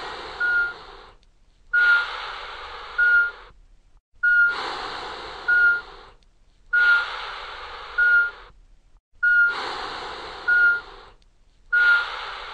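Operating-theatre sound effects: a heart monitor beeping steadily, a little more than once a second, over a repeating breathing sound that swells in and fades away about every two and a half seconds.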